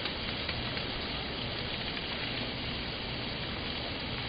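Steady patter of meltwater dripping from ice-coated trees and shrubs, with faint scattered ticks of single drops: the ice glaze is melting.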